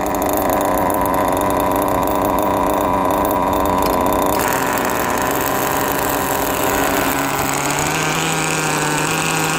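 Small nitro glow engine of a radio-controlled touring car idling during break-in, running rich and rough and close to stalling. The idle is set high to keep it running. The sound shifts slightly about four seconds in.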